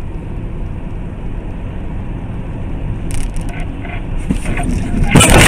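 Steady road and engine rumble of a car driving on a highway, heard from inside the cabin. A few light clicks come in after about three seconds, and near the end a sudden loud crash-like noise breaks in.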